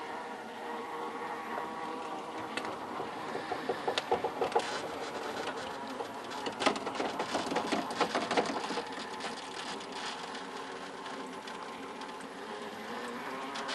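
Traxxas TRX-4 RC crawler's electric motor and geared drivetrain whining steadily, with a patter of clicks and knocks in the middle, about four seconds and again from six to eight and a half seconds in, as it crawls over rock.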